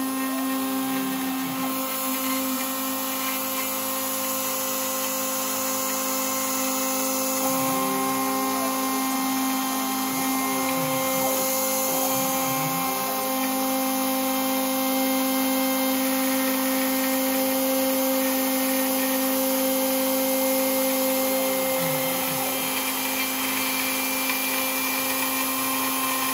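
Rat Rig KillerBee CNC machine milling aluminium: the spindle whines at a steady pitch as the end mill cuts. The axis stepper motors sweep up and down in pitch each time the machine speeds up, slows or changes direction. A steady high hiss runs underneath.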